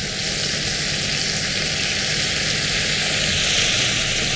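Cabbage sizzling in hot butter and olive oil in a stainless steel sauté pan as a splash of water hits the hot fat and boils off into steam, a steady hiss.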